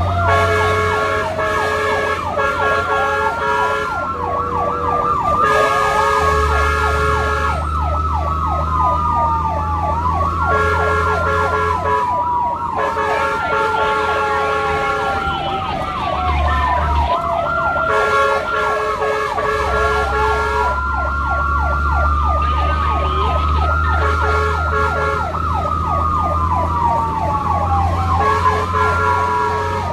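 Several electronic sirens of responding fire and rescue vehicles sounding at once: a fast yelp, slow rising-and-falling wails and a stepped high-low tone, over the steady hum of a vehicle engine.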